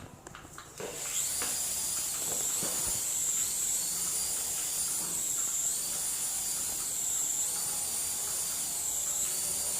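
Tiny electric motors of a toy RC helicopter starting up about a second in and running as a high whine with hiss from the spinning rotors. The pitch rises and falls in a regular cycle about once a second as the motor speed changes.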